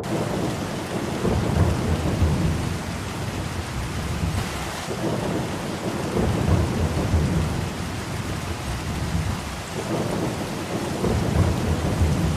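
Steady heavy rainfall with thunder rumbling low underneath, swelling and easing every second or two.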